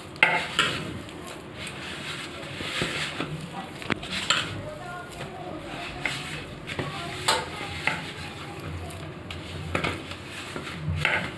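Semolina and flour dough being mixed by hand in a stainless steel bowl, with water added a little at a time: uneven scraping and squishing strokes of the hand against the bowl, and a few sharp clicks.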